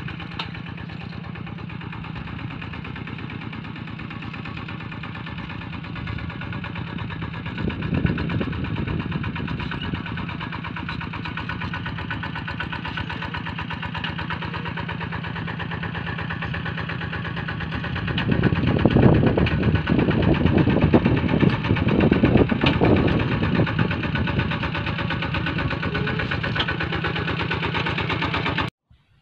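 Two-wheel walking tractor's single-cylinder diesel engine running steadily under load while ploughing, louder for the last third as it comes close. It cuts off suddenly just before the end.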